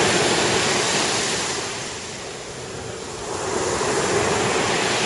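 Sea surf washing on a sandy beach: a steady rush of surf noise that eases about halfway through, then swells again.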